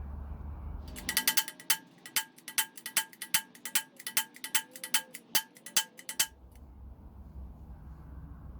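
A quick, even run of light metal-on-metal taps, each one ringing, about two or three a second for roughly five seconds before stopping.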